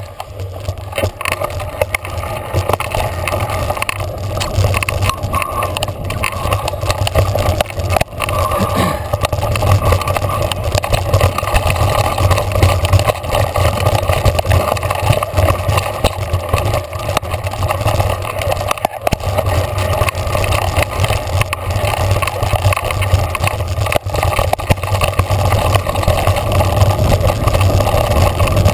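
Mountain bike running fast down a rough dirt singletrack: wind buffeting a handlebar-mounted camera's microphone, with tyre rumble and a constant rattle and knock of the bike over rocks and roots.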